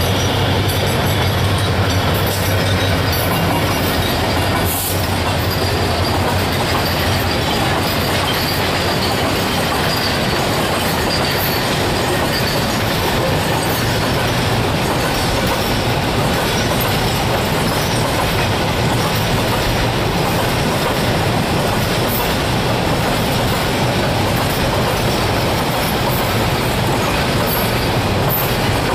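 Diesel-hauled container freight train passing close by: a steady, loud rumble and clatter of wagon wheels on the rails, with a low hum that fades after the first several seconds as the locomotive goes past.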